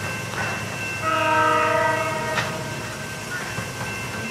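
Freight locomotive's air horn sounding one chord blast of about a second and a half, starting about a second in, over the low rumble of the approaching train. It is the warning blown for a road grade crossing.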